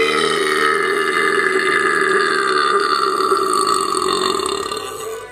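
One long belch, drawn out for about five seconds, its tone slowly falling.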